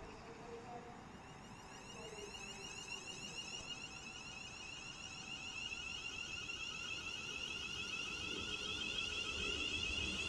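Class 350 Desiro electric multiple unit pulling away and accelerating. Its traction equipment gives a high whine of several tones that rise slowly in pitch and grow louder as it speeds past.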